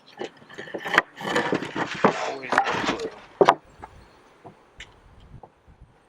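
Plywood pieces being handled, scraping and knocking against each other, with two sharp knocks in the first half and lighter scattered taps afterward.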